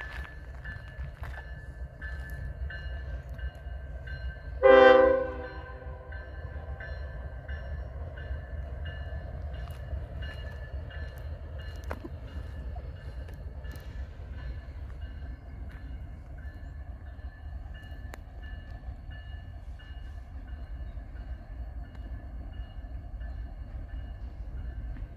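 One short blast, about half a second long, of a Nathan K5HL five-chime air horn on CN ES44DC locomotive 2250, about five seconds in. Under it runs the steady low rumble of the freight train.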